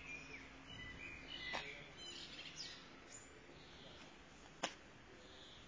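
Faint outdoor background with a few short bird chirps in the first half, and a couple of sharp clicks, the louder one near the end.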